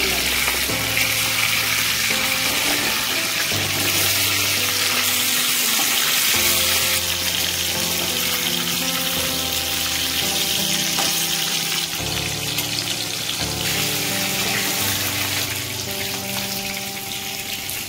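Pieces of fish sizzling steadily as they shallow-fry in hot oil in a steel kadai.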